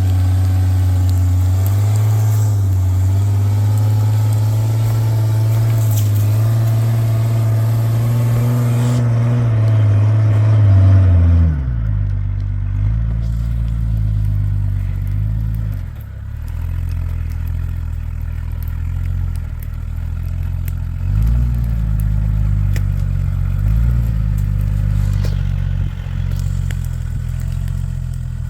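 Off-road vehicle's engine working under load at steady raised revs for about eleven seconds, then dropping back to a lower, rougher running note with a few short blips of throttle, as the vehicle is eased back and forth on a climbing obstacle.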